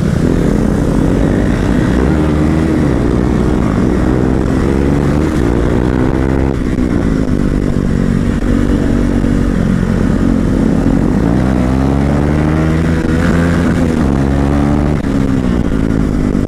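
Motorcycle engine under way, its pitch climbing and dropping several times as the throttle is rolled on and off through a run of bends.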